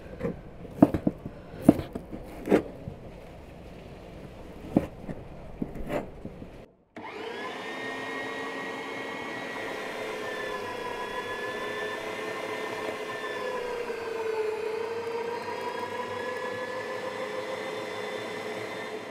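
A knife chopping lamb fat tail on a wooden cutting board, a handful of sharp knocks. About seven seconds in, an electric meat grinder starts and runs steadily, its pitch dipping briefly twice as meat and fat are pushed through it.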